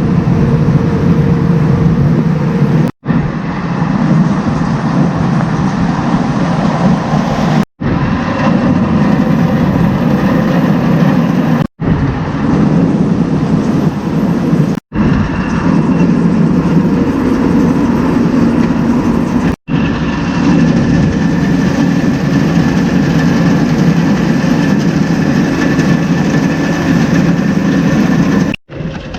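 Silo unloader and belt bunk feeder running, carrying corn silage out to the cattle bunks: a loud, steady mechanical drone. It is broken by short gaps every few seconds.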